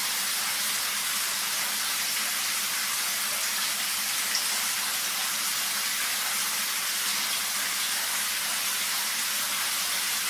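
Shower water running: a steady, even spray hiss, with one brief tick about four seconds in.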